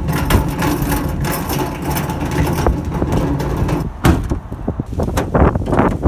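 Wind buffeting the microphone: a loud, rough rumble that rises and falls in gusts.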